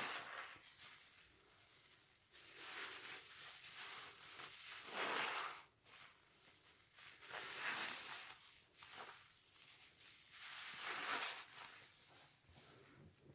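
A sponge soaked in washing machine liquid being squeezed, with wet squelching and sudsy crackle. It comes in three squeezes, each lasting a second or more, a couple of seconds apart.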